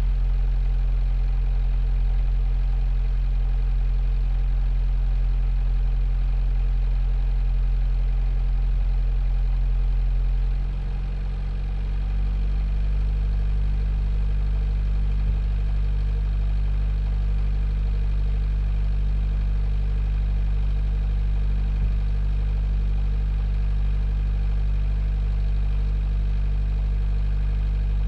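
A 45 ft sailboat's inboard diesel engine running steadily, heard from inside the aft cabin. About ten seconds in it changes speed with a brief dip in loudness, then runs steadily at the new speed.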